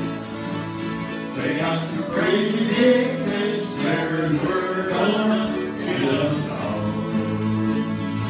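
A group of voices singing a song together, accompanied by acoustic guitars.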